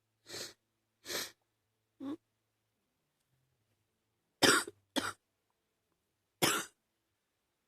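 A person coughing in short separate coughs, a chest cough from a virus that has moved into the chest. Three softer coughs come about a second apart, then after a pause two louder coughs close together and one more.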